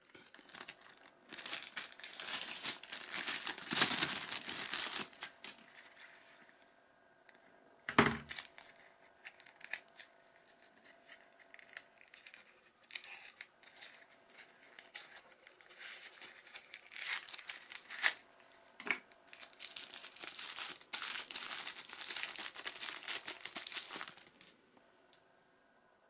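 A small clear plastic bag and its wrapping crinkling and rustling as they are opened and handled, in two long spells with scattered crackles between. One sharp bump about eight seconds in.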